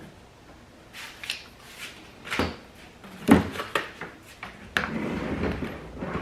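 Lawnmower handle parts being handled and fitted: a series of irregular knocks and clatters, the loudest about three seconds in, followed by scraping and handling noise.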